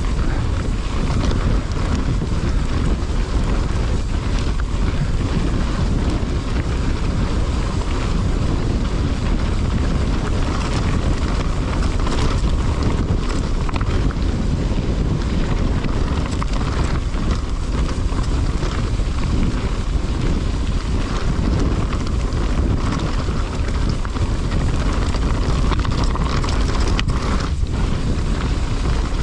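Wind buffeting the action camera's microphone as a mountain bike runs fast down a descent, a steady loud rush with tyre and trail noise and a few sharp knocks from the bike over rough ground.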